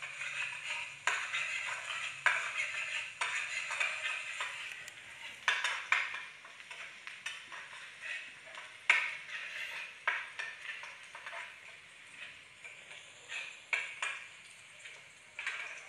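Metal spatula stirring in a small metal wok, scraping and tapping the pan in irregular sharp strokes, over a steady sizzle of hot oil frying on the gas burner.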